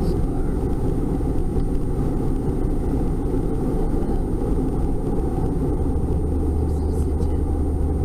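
Road and engine noise inside a moving car's cabin: a steady low rumble of tyres and engine, with a low hum coming in about six seconds in.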